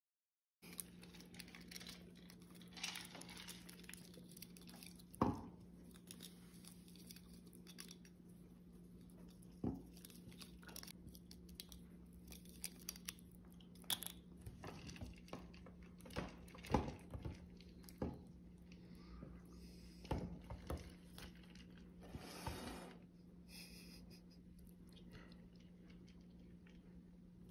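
Gray squirrel chewing on a plastic drinking straw: scattered small crunches and sharp clicks at irregular intervals, over a steady low hum.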